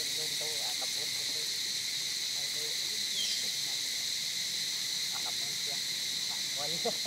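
Steady high-pitched drone of an insect chorus, with faint short calls scattered through it and a brief falling chirp about three seconds in.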